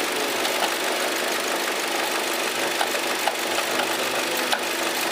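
An engine running steadily at idle, with a few faint light ticks.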